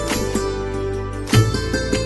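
Background instrumental music: plucked strings with bending notes over a steady low drone.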